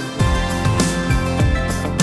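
Upbeat background music with a steady beat, about two beats a second, and guitar.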